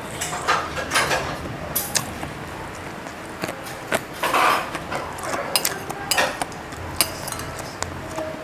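Eating at the table: a metal spoon clinking now and then against a ceramic plate, with short sounds of chewing and mouth noise between the clinks.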